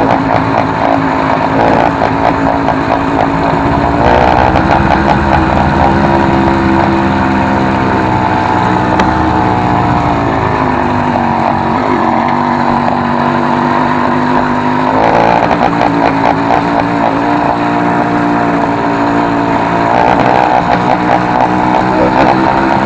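A motorized bicycle's small engine running very loud through a homemade open exhaust, its original tip swapped for a soda-can cap. The engine speed surges up several times, at about 4, 15 and 20 seconds in, easing back down between the surges.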